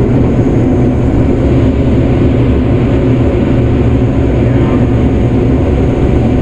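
Combine harvester running steadily while harvesting corn: a loud, even drone of engine and threshing machinery.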